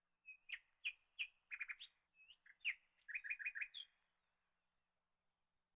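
A small bird chirping: two short phrases of quick, sharp, high notes, each ending in a rapid run of four or five notes, over the first four seconds.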